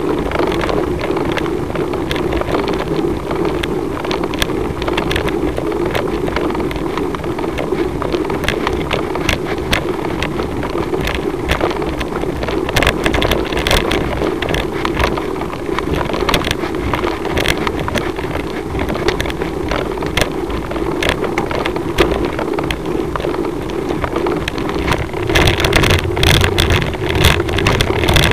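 Engine of a slow-moving follow vehicle running with a steady drone, mixed with wind on the microphone and many small clicks and rattles. The rattling and buffeting grow louder near the end.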